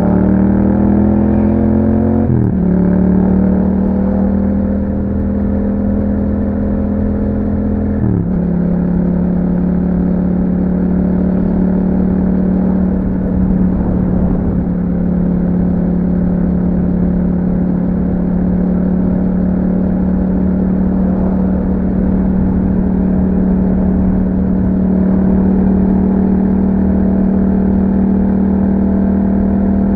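2021 Yamaha MT-07's parallel-twin engine through an Akrapovic exhaust, accelerating with a sharp drop in pitch at each of two upshifts, about two seconds in and about eight seconds in, then holding a steady engine speed.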